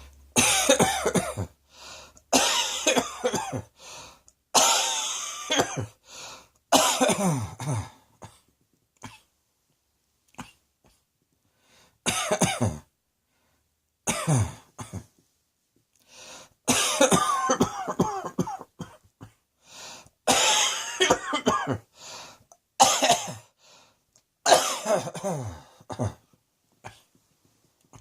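A person coughing in repeated fits: about ten bouts of several coughs, each bout one to two seconds long, separated by short pauses and one longer pause about a third of the way through.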